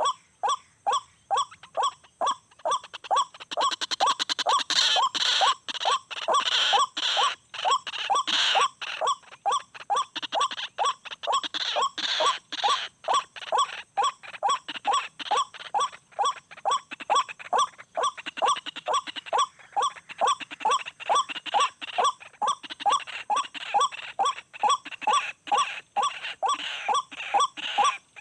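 White-breasted waterhen (ruak-ruak) calling over and over at an even pace, about two notes a second, with a denser, harsher stretch of calling from about four to nine seconds in.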